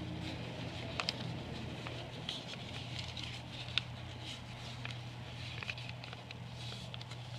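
A folded sheet of printer paper rustling and crackling in handling, with scattered light crinkles. A steady low hum runs underneath.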